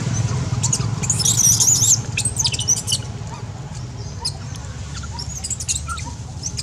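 Baby macaque screaming in shrill, wavering squeals, in a run about a second in and again briefly near the end, over a steady low hum.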